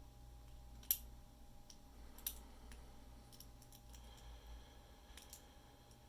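Small metallic clicks of a lock pick working the wafers of a wafer padlock during single-wafer picking. The sharpest click comes about a second in and another just after two seconds, with fainter ticks scattered between.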